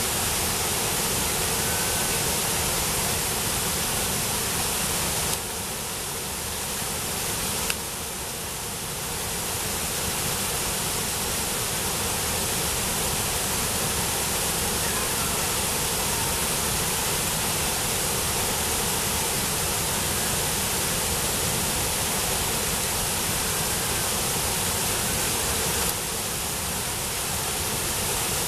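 Steady rushing roar of water pouring over Brooks Falls, spread evenly from low to high. It briefly drops in level for a few seconds around six seconds in, with a single click near eight seconds.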